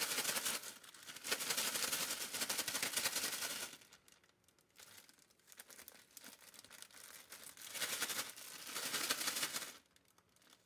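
Plastic zip-top bag crinkling as it is worked by hand to coat pumpkin seeds in seasoning. The crinkling comes in bouts: a long one through the first four seconds, then quieter, and another about eight seconds in.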